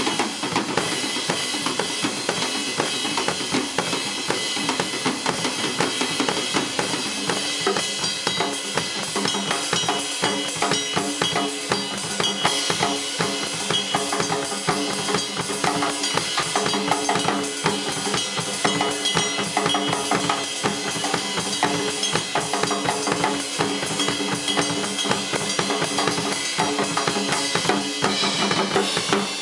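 Live drum kit solo: rapid, dense, continuous strokes on snare and bass drum, played loudly with no pause.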